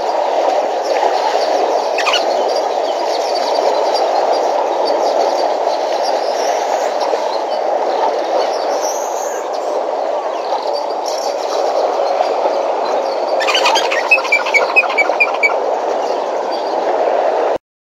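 A steady rushing background noise from the waterhole livestream, with a bird calling a quick series of about six high chirps near the end. The sound cuts out for a moment just before the end.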